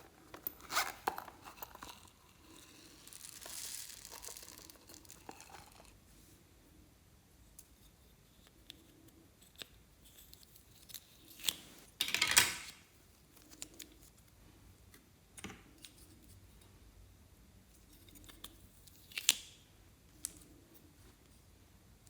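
Hands handling slime and materials: scattered short tearing and crinkling sounds, the loudest cluster about twelve seconds in, with a softer hissy stretch near the start.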